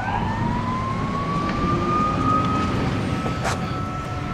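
Emergency vehicle siren sweeping up in pitch over about a second and a half, then holding a steady high tone, over a low rumble. One sharp click about three and a half seconds in.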